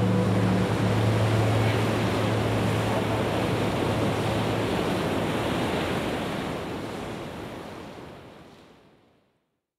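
Steady rushing ocean noise like surf, with a low steady hum under it for the first couple of seconds. It fades out over the last few seconds to silence.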